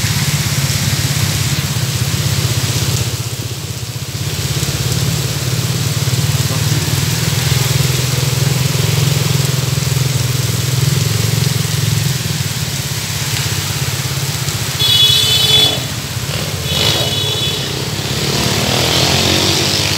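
Heavy rain pouring down with cars and motorcycles driving past on the wet road. A vehicle horn honks twice near the end, the first time the loudest.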